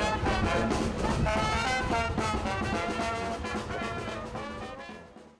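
Music led by brass instruments, fading out to silence near the end.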